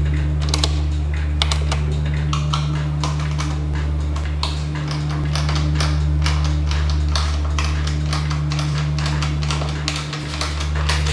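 Irregular clicking and light tapping of 3D-printed cement tiles being handled and fitted together, several clicks a second, over a steady low hum.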